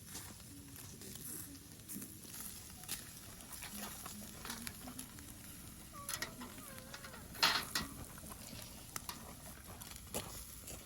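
Meat sizzling over wood-fire embers, with scattered crackles and pops and one sharp pop about seven and a half seconds in.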